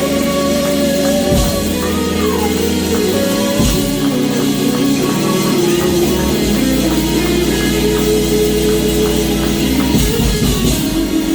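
Live church band playing worship music, with drum kit, guitar and sustained chords.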